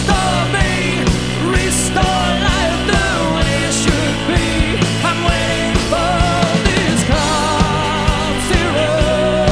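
Live rock band playing, with a steady low bass line, repeated drum and cymbal hits, and a wavering lead melody over the top.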